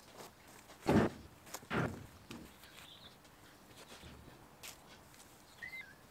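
Two soft thuds with a rustle about a second in and again shortly after, a worker's footsteps on grass strewn with dirt and uprooted roots, then faint scuffs; a bird chirps briefly near the end.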